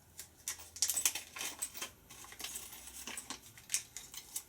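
Small spare metal bolts for a model excavator bucket clicking and clinking against each other as they are taken out of their bag and handled, in quick irregular ticks.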